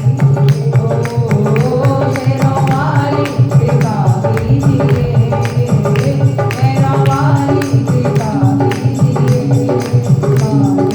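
Devotional bhajan music: a melody carried by voices over fast, steady jingling percussion and a sustained low accompaniment.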